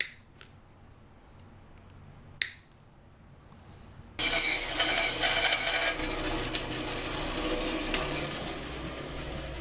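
A sharp snip of cutters clipping the sprue off a freshly cast silver ring about two and a half seconds in. About four seconds in, a power tool switches on suddenly and runs with a loud, steady grinding noise.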